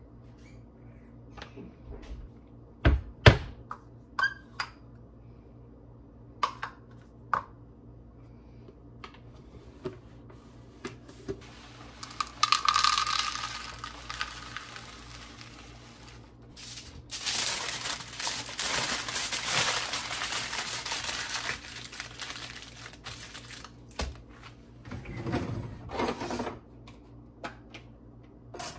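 Small plastic food containers and their lids being handled and set down on a wooden cutting board, sharp knocks and clicks with the loudest about 3 s in. From about 12 s to 22 s, a plastic bag rustles as dry food is poured from it into a small plastic container. More lid clicks and knocks come near the end.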